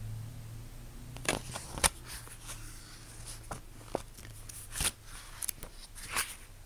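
Paper rustling with scattered soft swishes and ticks as book pages are turned and photographs handled, over a faint steady low hum.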